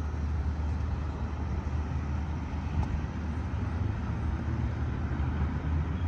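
Steady low rumble with an even hiss above it, outdoor background noise with no separate events standing out.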